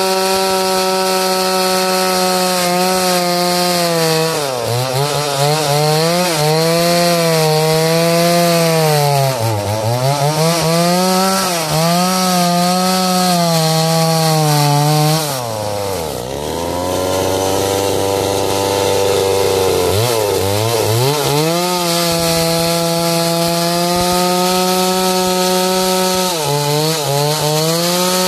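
Two-stroke chainsaw running at full throttle and cutting jackfruit wood. Its engine note drops several times as the chain bites in and takes the load, sagging deepest about halfway through, then climbs back to full speed.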